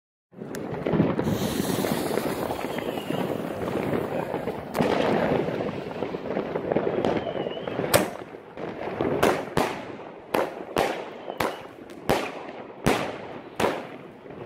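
Katan Black Sword fused compound firework cake firing. First comes a dense, continuous rush of rapid shots. About eight seconds in there is a loud bang, and after it single shots crack out in quick succession, one every half second to a second.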